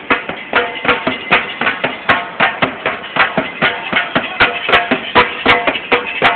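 Hand drum beaten by marchers in a steady rhythm, about three strikes a second.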